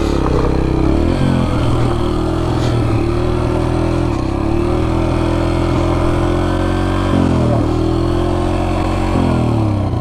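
Yamaha TT-R125LE dirt bike's small single-cylinder four-stroke engine running at low revs under light throttle. The revs sag and pick up again a few times as it is eased over rough ground.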